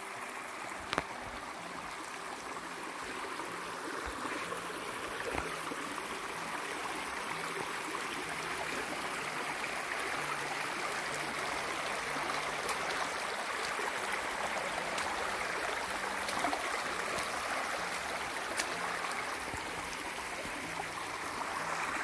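Rushing creek running full after overnight rain: a steady wash of flowing water that swells a little toward the middle, with a faint click about a second in.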